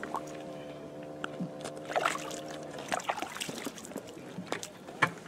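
A walleye being pushed back down an ice-fishing hole, with sloshing and splashing of the water in the hole. A steady motor hum runs underneath and cuts off about two and a half seconds in.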